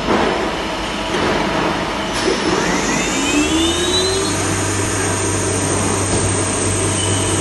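Ace Micromatic CNC lathe running, with a whine that rises in pitch about two to four seconds in as the spindle spins up, then a steady low hum.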